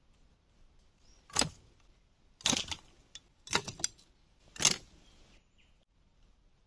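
Four short, loud rustles and crackles of sticks and dry leaves in forest leaf litter, spread over a few seconds.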